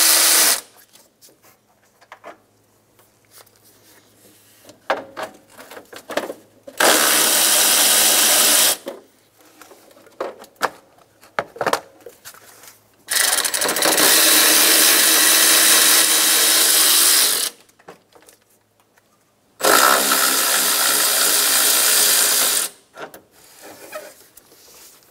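Cordless power ratchet with a 10 mm socket spinning out fan shroud bolts, in four steady runs of two to four seconds each; the first run stops about half a second in. Between runs there are light clicks and knocks of handling.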